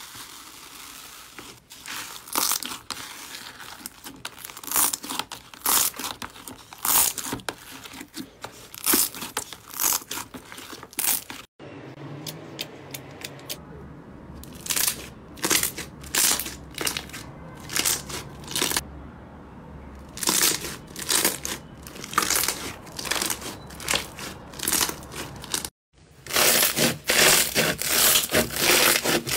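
Slime being squeezed, pressed and poked by hand, making repeated sticky popping and crackling, broken by two short gaps where the clips change. In the last few seconds foam-bead slime crunches under the hands, louder and denser.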